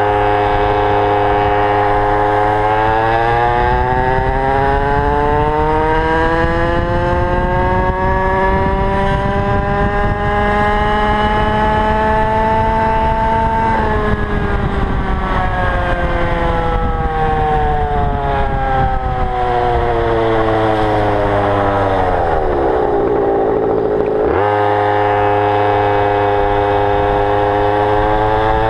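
Two-stroke engine of a Goped GTR stand-up scooter, on a 25:1 fuel mix, pitch climbing steadily for about twelve seconds under throttle. It drops sharply about halfway through and winds down for about ten seconds, then settles into a steady idle near the end. The owner wonders whether it sounds like it is running too rich.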